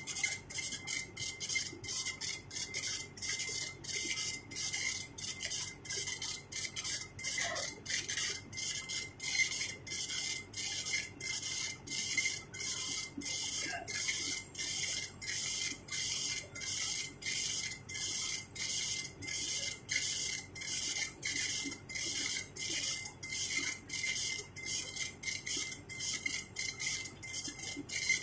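CNC machine cutting, a high hissing noise with a faint steady tone under it, pulsing about twice a second.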